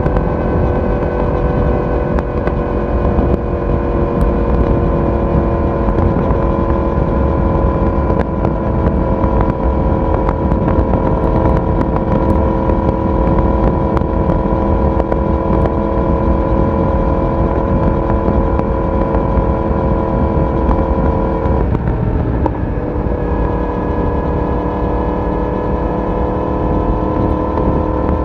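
Yamaha YZF-R1 inline-four motorcycle engine and exhaust running steadily at cruising speed, its note drifting slowly. Near the end the note breaks briefly and comes back slightly lower, as in an upshift.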